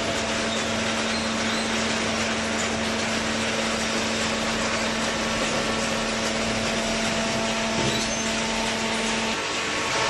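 Steady running noise of a hydraulic cardboard baler, a constant machine hum with one steady tone that cuts off about nine seconds in.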